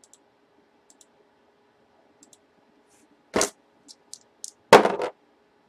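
A cardboard box and dice handled on a tabletop: a few faint clicks, then a sharp knock about three and a half seconds in, some light taps, and a louder clatter about a second later.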